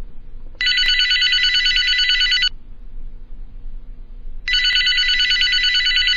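Telephone ringing: two rings of about two seconds each, about two seconds apart.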